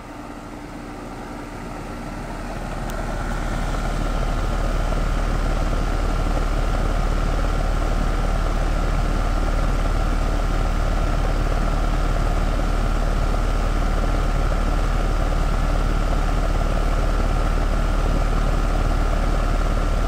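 Rheem single-stage heat pump outdoor unit running: its top-discharge fan and compressor give a loud steady hum and rush of air with a faint whine, about 75 dB-A at the cabinet. It grows louder over the first few seconds as the microphone nears the grille, then holds steady.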